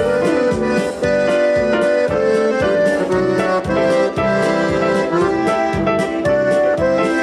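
Polka band playing an instrumental passage, an accordion carrying the melody in sustained chords over a steady oom-pah beat.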